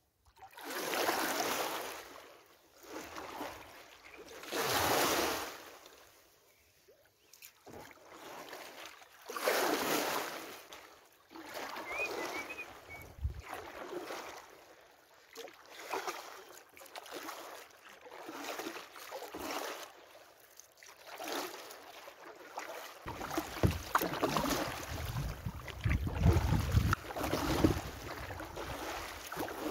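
Kayak paddle strokes: water splashing and running off the paddle blades, about one stroke every two seconds. In the last several seconds wind buffets the microphone with a low rumble.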